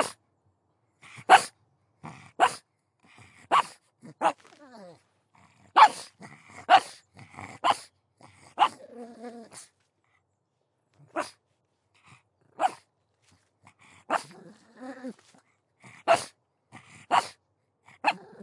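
A pug barking in short, sharp single barks, roughly one a second with an irregular rhythm. Between some barks there are wavering whines and grumbles. The barks pause for a moment about halfway through.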